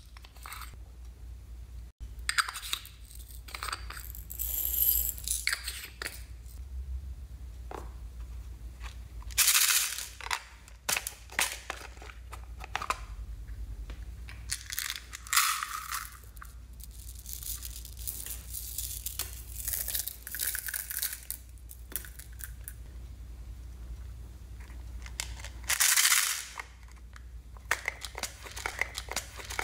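Small plastic containers of craft beads being handled, opened and tipped, with plastic beads rattling and pouring out in scattered clicks and several louder pouring bursts, about ten, fifteen and twenty-six seconds in.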